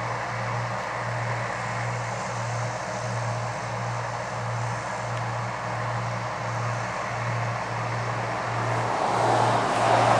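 Massey Ferguson 8570 combine harvester running steadily while harvesting corn, growing louder near the end.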